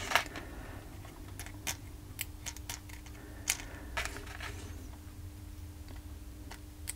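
Small, irregular clicks and taps of LEDs being pushed leg-first through the holes of a circuit board, over a faint steady hum.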